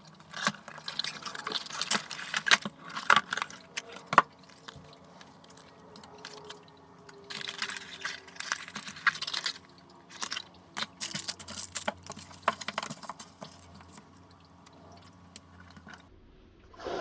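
Rustling and sharp clicks of objects being handled, in several bursts.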